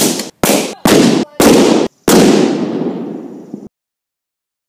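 A rapid series of five hydroxy (HHO) gas explosions from gas-filled bubble packaging bags, sharp booms close together. The last boom rings on with a long echo for about a second and a half before cutting off suddenly.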